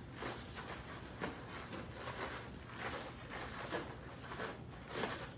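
Faint rustling and soft thuds of two people kicking in karate uniforms: the gi fabric swishes and bare feet land and turn on foam mats, in a string of irregular light strokes.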